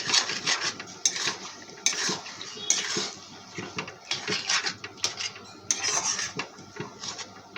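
A spatula scraping and clinking against a cooking pan in irregular strokes, stirring salt into potatoes cooking in masala.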